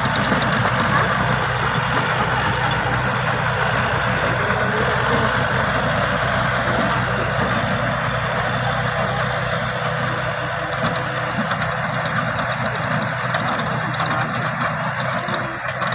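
4WD farm tractor's diesel engine running steadily while driving a rear-mounted rotary tiller through the soil, slowly growing fainter.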